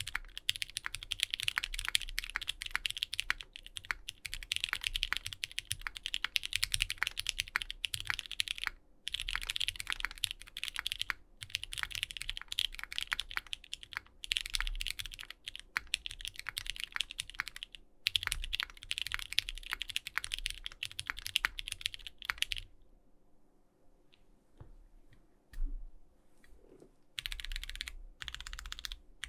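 Fast typing on a Bakeneko60 mechanical keyboard with lubed Durock Light Tactile switches and GMK keycaps on a carbon fibre half plate: a dense run of keystroke clicks. About three-quarters of the way through the typing stops for a few seconds, with one lone key stroke in the pause, then starts again.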